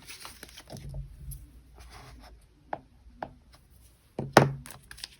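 Paper bills and a cash envelope being handled on a table: soft rustling with a few light taps, and one sharper knock about four seconds in.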